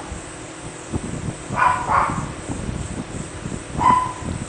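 A dog barking in short yips: two close together a little under two seconds in, and one brief yip near the end.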